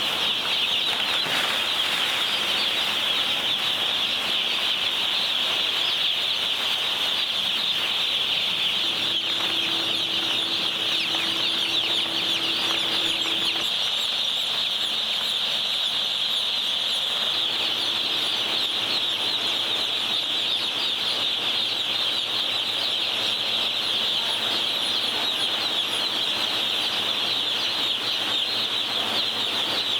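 A large flock of day-old broiler chicks peeping continuously, a dense high chatter of many overlapping chirps.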